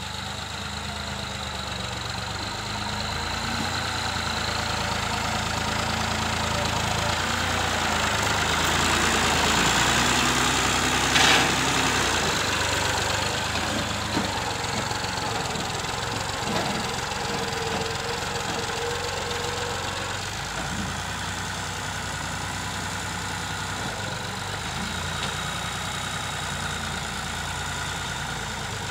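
Massey Ferguson tractor's diesel engine running steadily while it drags a rear blade through loose soil, growing louder as the tractor comes close about halfway through. A single sharp knock sounds a little before the middle.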